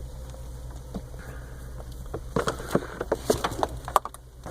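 Scattered light clicks and taps of hands handling things, most of them between about two and four seconds in, over a steady low hum.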